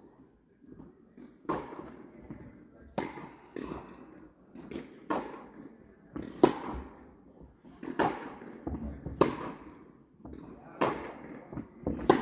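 Tennis rally: a ball struck back and forth with rackets and bouncing on a hard court, a sharp pop about every second to second and a half, each one echoing in the indoor tennis hall.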